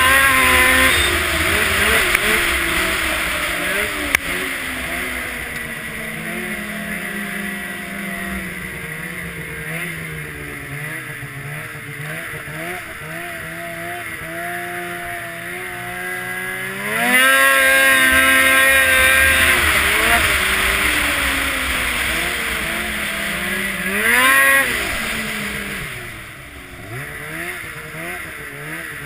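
Snowmobile engine under way, its pitch slowly sinking as it eases off, then revving up sharply about halfway through and again briefly a few seconds later, with the revs wavering up and down near the end.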